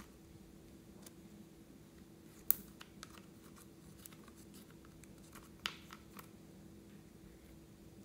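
Small plastic spatula scraping and tapping pressed eyeshadow in a makeup palette pan: a few faint clicks and scrapes, the sharpest about two and a half seconds in and another near six seconds, over a low steady hum.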